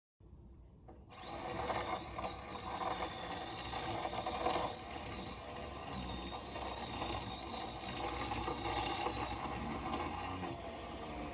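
A small motor running steadily with a wavering high whine, coming up to speed about a second in.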